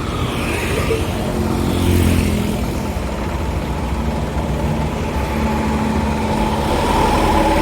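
Bus engine running steadily with a low rumble as the bus gets under way.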